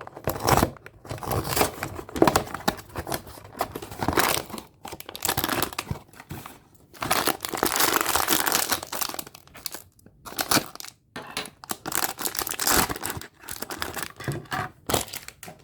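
Blind-box packaging being torn open and crinkled by hand, in irregular bursts of rustling and tearing, densest in a long stretch around the middle.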